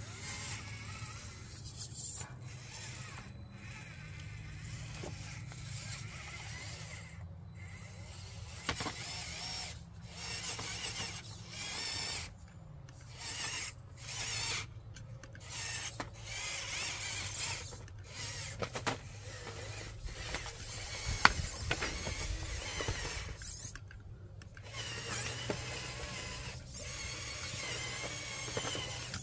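Hobby Plus Arktos 6x6 RC crawler's electric motor and gearbox whining in short stop-start runs as it crawls over wood and rocks, with one sharp knock about two-thirds of the way through.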